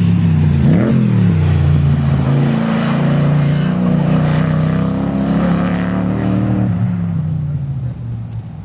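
A Cobra-style roadster race car's engine working through a chicane. Its revs rise and fall sharply about a second in, then it holds a fairly steady note under load, and it fades near the end as the car pulls away.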